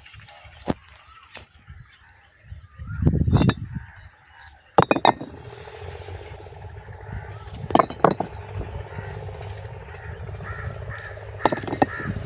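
Crows cawing in short, separate calls, several times, over a steady low rumble of outdoor ambience.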